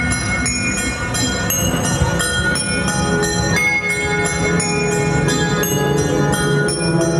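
Show music: a melody of bell-like chiming notes changing about every half second over a sustained low drone.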